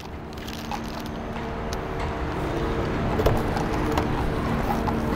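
City street traffic noise fading up, with a steady engine hum, and the clicks and knock of a car door latch as the door is opened about three seconds in.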